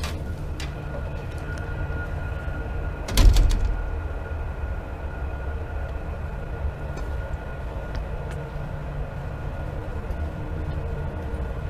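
Steady low industrial rumble with faint steady whines, the constant noise of the BorsodChem chemical plant. A single sharp knock about three seconds in.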